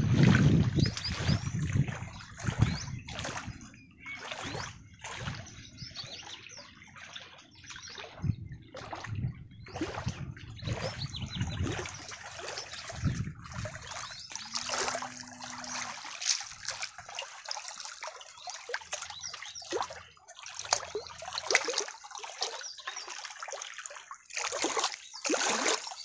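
Water splashing and trickling in quick, uneven splashes, with no steady rhythm.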